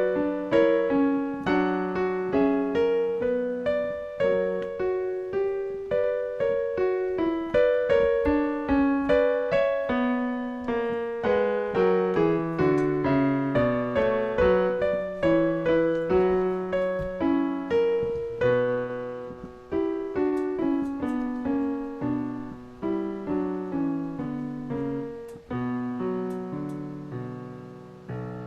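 Solo piano playing a slow, gentle piece: single struck notes and chords, each fading away, with a long chord held near the end.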